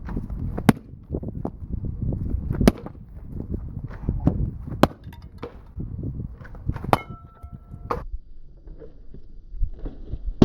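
Sharp metal strikes and crunching as a small generator engine's block is broken up. A loud blow lands about every two seconds, one of them leaving a short metallic ring, and it eases off near the end.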